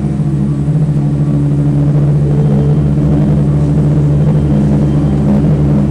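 Medical helicopter running on the helipad with its rotor turning: a steady, loud, low hum of the rotor and turbine engines that holds even throughout.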